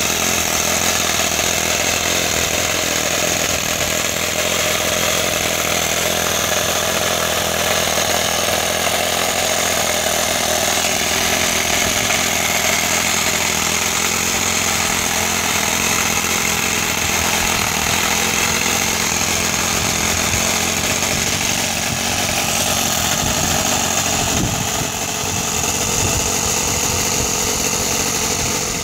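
Small O.S. FS-26S model engine in a 1/12-scale live-diesel locomotive running at a steady speed while the loco drives along the track, with a steady high whine over it.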